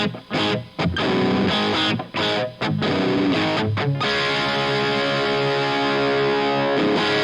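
Distorted electric guitar played through an Omega Series Micro amplifier, heard through a Greenback guitar cabinet impulse with added reverb. Short, choppy chords stopped between strikes, then one chord left to ring for about three seconds past the middle, then choppy chords again near the end.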